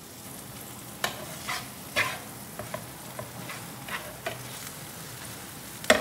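A metal spatula scraping and clacking against a flat tawa as a vegetable masala filling is stirred and mashed, under a steady sizzle of frying. The clacks come irregularly, several a second at times, and the sharpest one comes near the end.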